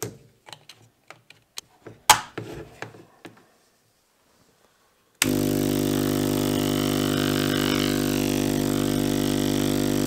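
A few clicks and knocks from handling the power strip and plug, then an ACO-318 45 W electromagnetic aquarium air compressor starts abruptly about five seconds in and runs with a steady buzzing hum, vibrating on the desk. It is not too loud.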